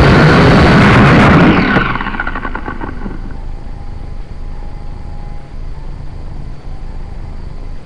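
A quad bike's engine running hard; about two seconds in its pitch falls away and it settles to a low, steady running sound.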